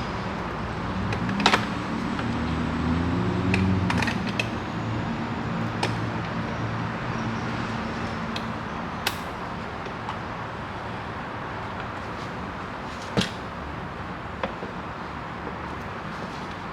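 Scattered sharp clicks and taps over a steady background hum, with a low wavering drone in the first few seconds.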